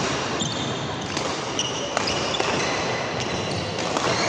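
Badminton rally: several sharp racket strikes on the shuttlecock, roughly one a second, with short high-pitched squeaks of shoes on the court floor between them.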